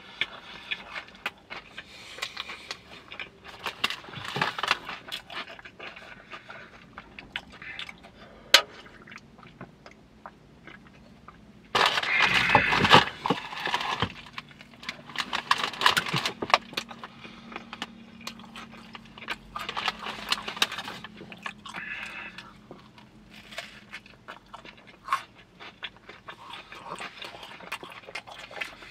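Close-up mouth sounds of eating a breakfast chicken sandwich and hot Cheetos: wet chewing and smacking with bits of crunching. About twelve seconds in comes a loud crinkling rustle of the snack bag lasting about two seconds, followed by more chewing.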